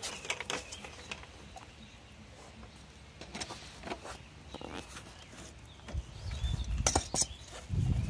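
Scattered clicks and knocks of a strap wrench and hands working the plastic union fitting on a pool pump's inlet pipe, with a low rumble in the last couple of seconds.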